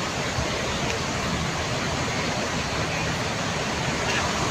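Steady, even noise of a busy bus terminal, with the low rumble of diesel bus engines running underneath.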